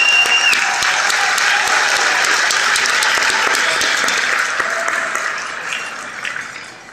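Crowd applauding, the clapping fading away over the last couple of seconds. A short, high, steady whistle sounds at the very start.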